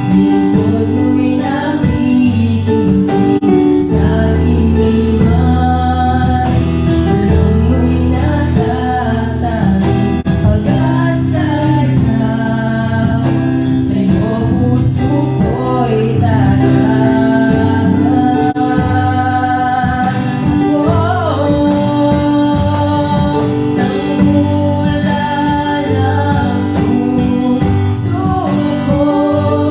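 Worship song: a voice singing a slow melody over guitar and bass accompaniment.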